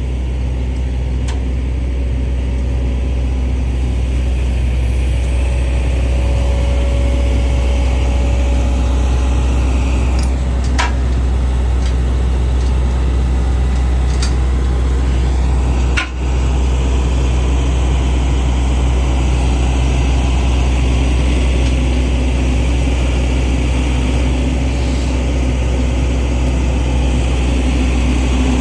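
Heavy equipment diesel engine idling steadily with a deep, constant drone, and a few sharp clicks or knocks from tools on metal.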